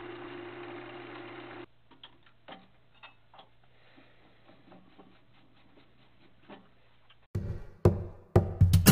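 Wood lathe motor running with a steady hum, cutting off suddenly about two seconds in. Faint scattered ticks and light taps follow, and music begins near the end.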